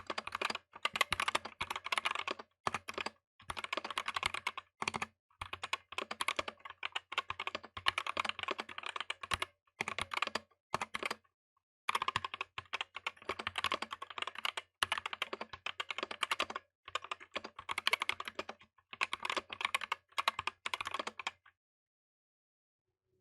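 Typing on a Tezarre TK63 Pro 60% mechanical keyboard with lubed Gateron optical black switches: runs of rapid keystrokes broken by short pauses. The typing stops near the end.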